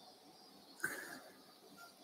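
Quiet operating-room background with faint short high beeps at a steady pace, about one every 0.6 s, from an anaesthesia patient monitor, and one brief sharp noise about a second in.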